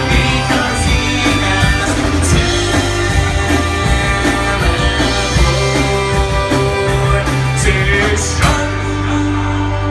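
Live rock band playing electric guitars and keyboard, with a singer's voice over it and a sharp crash about eight and a half seconds in.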